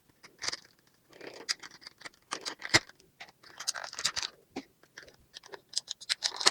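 Toy packaging being handled and opened: irregular scratching, scraping and rustling of cardboard and plastic, with many small clicks and a sharper click a little under three seconds in.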